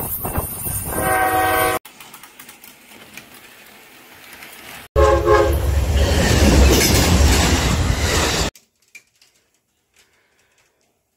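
Diesel freight locomotive approaching, its multi-note horn sounding about a second in before an abrupt cut. After a quieter stretch, another train horn sounds briefly and loud train rumble follows, cutting off suddenly; the last couple of seconds are near silent with a few faint clicks.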